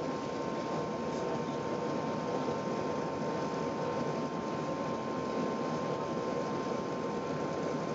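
Steady cabin noise inside an Airbus A380 airliner, heard from a passenger seat: an even rush of engine and airflow noise with a faint steady whine running through it.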